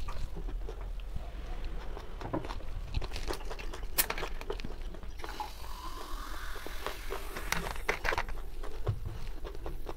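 Coca-Cola poured from a plastic bottle into a glass: a fizzing pour whose pitch rises as the glass fills, after a sharp click about four seconds in.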